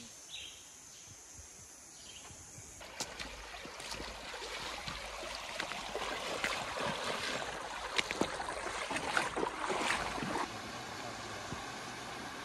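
Feet wading through a shallow, stony river, the water splashing irregularly with each step, starting about three seconds in. Near the end the splashing stops and a steady rush of flowing water remains.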